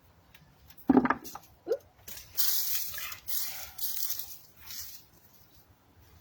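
Hands digging and scraping through loose garden soil in a raised bed, a run of hissing scrapes lasting about three seconds, after a short vocal sound about a second in.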